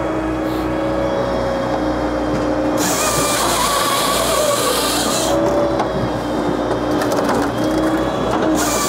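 Japa 395 firewood processor running off a tractor's PTO: a steady machine drone with whines that shift in pitch. A harsh high-pitched noise comes in about three seconds in and stops near the fifth second, then starts again at the end, with a run of sharp knocks and clicks of wood just before it.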